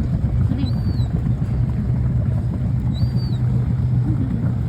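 A webbed-footed water bird giving two short, high peeps about two seconds apart, each rising, holding and dropping away, over a loud steady low rumble.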